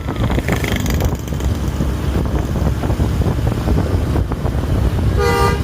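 Wind buffeting the microphone over the rumble of road traffic, then near the end a bus horn sounds one short note.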